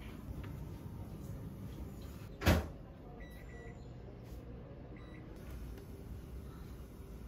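A single short, sharp knock about two and a half seconds in, over a steady low rumble of room noise, with a few faint short beeps after it.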